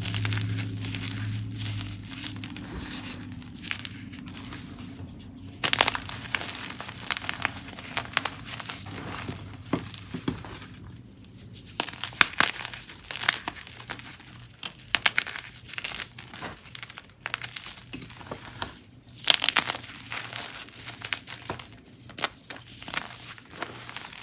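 Blocks and chunks of gym chalk being crushed, crumbling and crunching in irregular bursts of sharp crackles. A low hum fades out about two seconds in.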